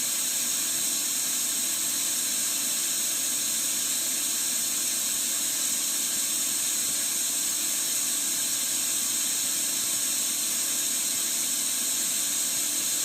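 Steady electronic hiss from a Studio Projects VTB1 tube preamp: its normal noise floor, with the intermittent buzz fault not sounding.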